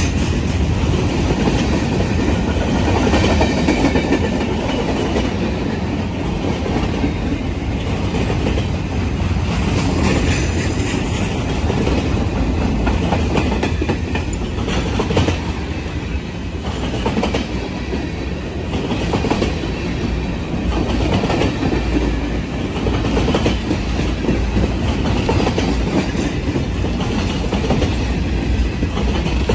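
Freight train of boxcars and tank cars rolling past at close range: a loud, steady rumble with the wheels clacking over the rail joints.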